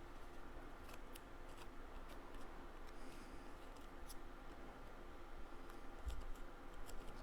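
Scissors snipping paper card stock in a scatter of short, faint, crisp cuts, with a low thump of handling on the table about six seconds in.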